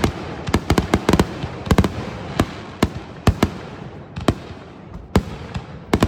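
Fireworks going off: a fast, irregular run of sharp bangs, closely packed in the first two seconds and thinning to single bangs half a second or more apart, with a hissing crackle between them.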